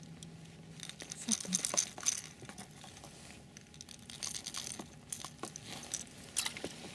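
Handling noise as a hard-plastic jerkbait's hooks are worked free of a pike's jaw: rustling jacket and gloves with small clicks and clinks of the metal hooks, in bursts about a second in, again around four seconds in, and one sharp burst near the end.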